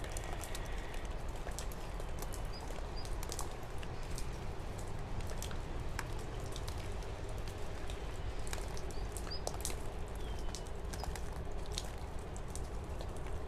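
Scattered light clicks and taps of hands handling a bare-rooted dracaena, a ceramic bonsai pot and a metal tray, over a steady low room hum. A few faint, very short high chirps come through now and then.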